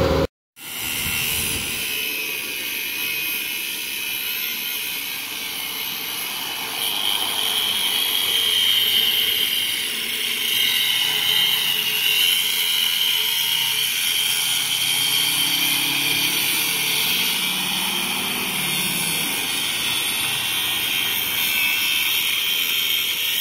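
Two cordless die grinders whining steadily at high pitch as they cut into slabs of broken concrete, the pitch wavering slightly as they bear into the cut.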